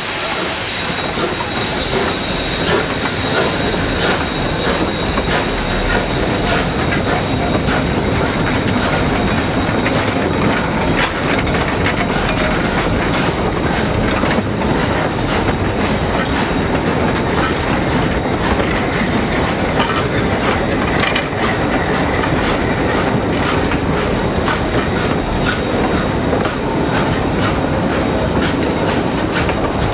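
Narrow-gauge steam train rolling slowly over jointed track, its wheels clicking in a steady rhythm of about two a second, with some wheel squeal. A thin steady whine near the start fades away.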